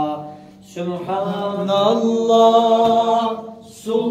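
A man singing an unaccompanied ilahi, a Turkish devotional hymn, in makam Hicaz. He draws out long held notes, pauses briefly, and starts the next phrase near the end.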